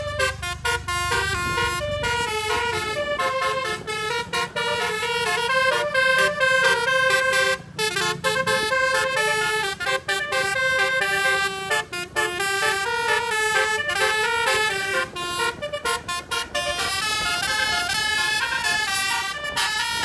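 Bus telolet horn playing a fast melody of many short stepped notes, with a low rumble underneath in the first two seconds.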